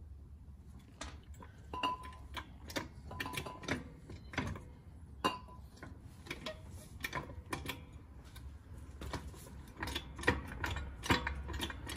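Irregular light clicks and metallic taps of hand tools and suspension parts being handled, some with a brief ring, over a low steady hum. The clicking starts about a second in and becomes busier toward the end.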